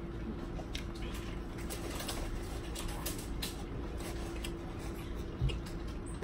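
Quiet eating at a table: faint scattered clicks and small taps from handling and chewing crab and lobster, over a steady low hum. A soft low thump comes near the end.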